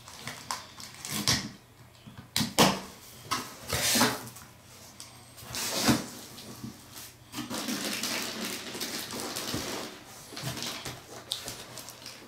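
Cardboard carton of a CyberPower UPS being opened by hand: flaps bent back and the box knocked, with a run of sharp cardboard snaps and thuds over the first six seconds. Then a few seconds of steady rustling as the packing inside is pulled at.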